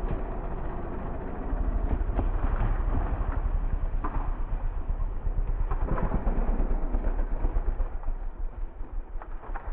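Dirt bike engine running as the bike rides the motocross track, heard muffled through an onboard camera, with fast pulsing in level and scattered knocks.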